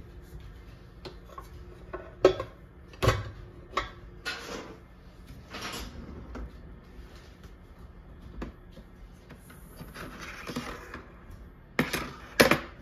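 Kitchenware being handled: a frying pan knocking against pots and lids in a plastic dish rack, then a kitchen drawer sliding open and a ladle and cutlery clacking inside it. A series of irregular sharp clacks, the loudest two close together near the end.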